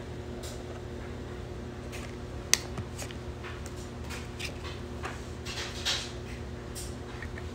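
Small plastic jar of nail gel and its protective film being handled and peeled: light taps and rustles, one sharp click about two and a half seconds in, and a short crinkle later on, over a steady low hum.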